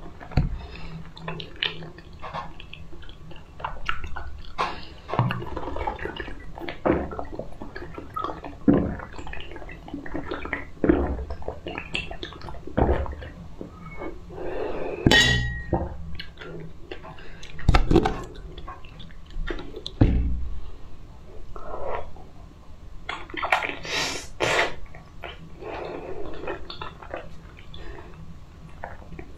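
Close-up eating sounds: soft, wet mouth smacks and slurps of jelly and pudding, with sips from a glass cup and a single glass clink about halfway through that rings briefly.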